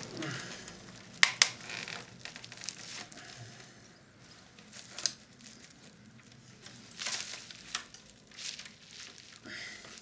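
Handling noise from a vintage Philips radio cassette recorder's plastic parts as a knob is worked at: irregular scrapes and small clicks, with two sharp clicks close together about a second in.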